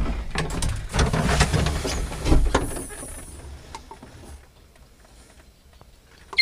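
Irregular knocks, clicks and rustling of someone moving about a tractor cab and handling the controls. It goes quiet after about three and a half seconds.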